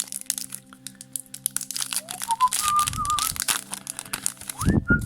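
Foil booster-pack wrapper crinkling and rustling as a trading-card pack is handled and torn open. From about two seconds in, someone whistles a short wavering tune over steady background music.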